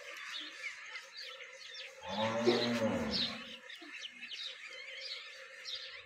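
A cow mooing once, a low drawn-out call about two seconds in that lasts about a second and a half, over small birds chirping throughout.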